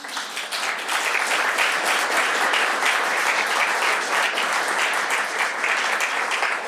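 Audience applauding: many people clapping, breaking out suddenly and holding steady.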